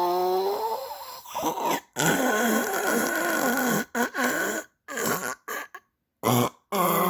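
Snoring in a run of short snippets, each cut off abruptly by a brief silence several times over.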